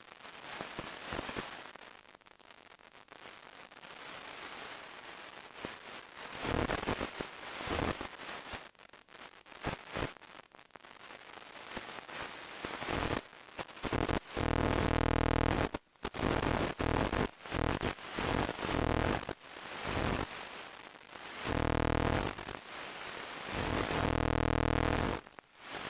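Static on the audio channel of an analog FPV video receiver: a crackling hiss, then from about halfway a loud buzz that cuts in and out abruptly again and again. The sound of the video radio link breaking up as the aircraft flies out of range.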